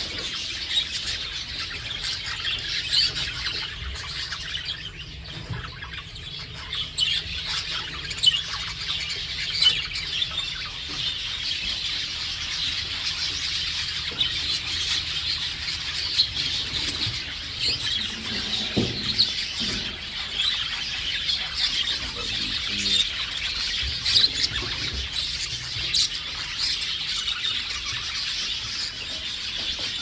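A roomful of caged budgerigars chattering continuously: many high chirps and squawks overlapping without a break.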